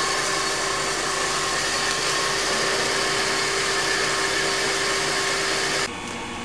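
Metal lathe running steadily, spinning an Abarth A112 crankshaft while a boring bar bores out the crank's end for a pilot bushing: a steady machine hum with a fixed whine. Near the end it gives way abruptly to a quieter background hum.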